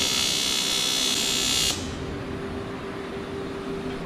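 Electric welding arc buzzing steadily on an aluminium engine cover, then cutting off suddenly about one and a half seconds in as the weld is finished. A quieter steady hum carries on after the arc stops.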